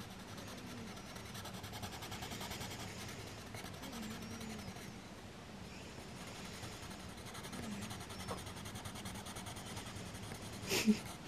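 Caran d'Ache Luminance coloured pencil rubbing across paper in steady colouring strokes, a faint, continuous scratching.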